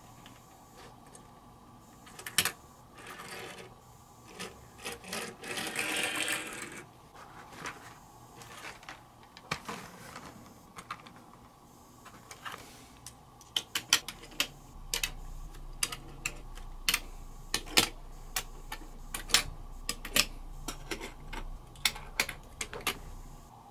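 Small plastic building-block toy vehicles clicking and clacking as they are handled and set down one after another on a wooden table, with a rustle of handling a few seconds in and a quick run of sharp clicks over the second half.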